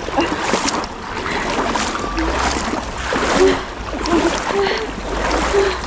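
Feet wading through shallow river water, with repeated splashing as legs push through the current over a rocky bed.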